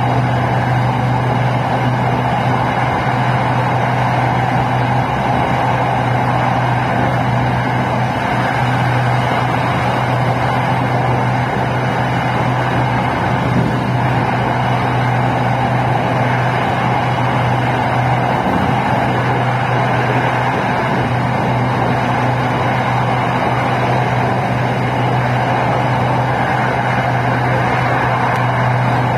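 SRT Red Line electric commuter train running at steady speed, heard inside the passenger car: an even running noise with a constant low hum.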